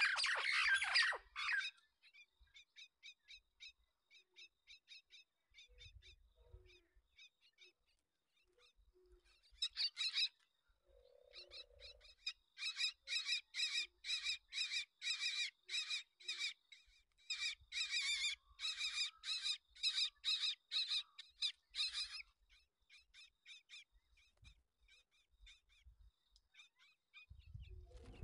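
Common myna chicks calling over and over in short, harsh begging calls, after a loud rasping burst at the very start. The calls are faint at first, grow loud and rapid at two or three a second through the middle, then fade.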